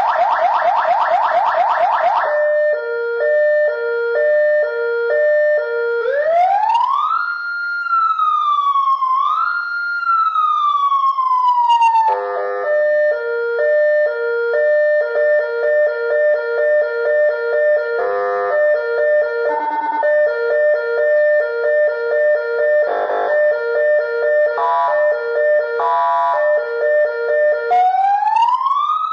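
Federal Signal 200-watt electronic siren cycling through tones: a fast pulsing tone for about two seconds, then a two-note hi-lo alternating about twice a second. About six seconds in it switches to a wail that rises, dips and rises again, then slides down; from about twelve seconds the hi-lo returns, broken by short bursts of other tones, and near the end a rising wail starts.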